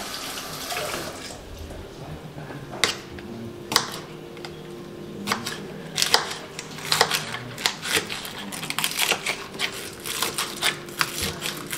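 A tap running briefly at the start, then a kitchen knife chopping vegetables on a plastic cutting board: irregular sharp knocks that come faster toward the end.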